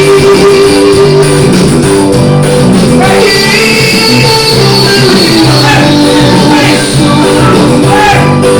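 Background music with singing over plucked guitar, in a Latin-style beat.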